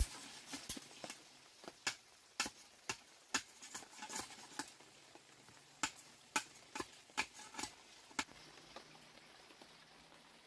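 An irregular run of sharp light taps and clicks, some close together, that stops about eight seconds in, over a faint steady low hum.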